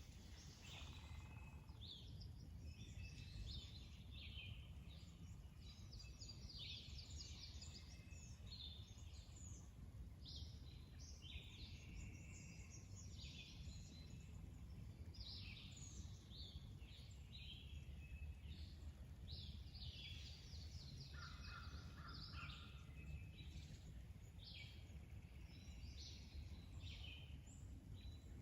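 Several wild songbirds singing and chirping in short, high phrases one after another, faint, over a steady low outdoor rumble.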